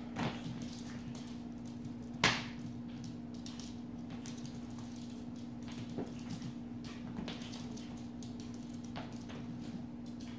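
Scattered taps and knocks on a hardwood floor, with one sharp knock about two seconds in, as a Pomeranian puppy scrambles and pounces at a towel, over a steady low hum.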